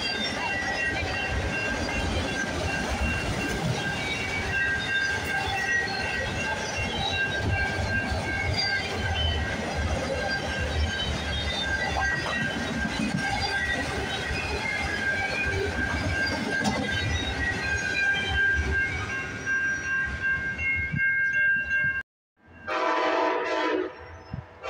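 Autorack freight train rolling past, wheels clattering and rumbling on the rails with a steady high-pitched squeal. After a brief gap near the end, an Amtrak passenger locomotive sounds its horn as it approaches.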